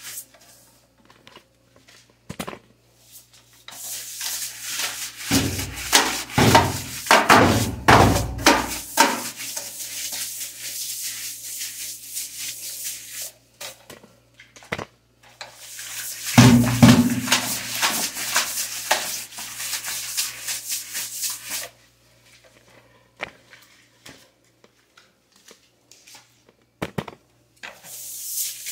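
Stiff-bristled push broom scrubbing a wet, soapy tiled floor: two long stretches of rapid scraping strokes, with quieter pauses in between holding a few knocks of the broom head.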